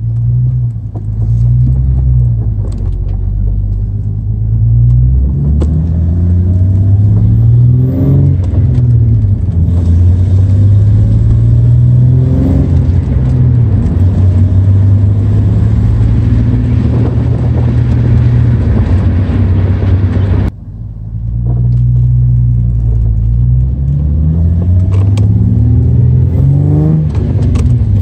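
Ford Mustang's V6 engine heard from inside the cabin, pulling through the gears of its manual gearbox: the revs climb, fall at each upshift, then climb again. Wind and road noise come through the open windows, and the sound cuts out for a moment about twenty seconds in.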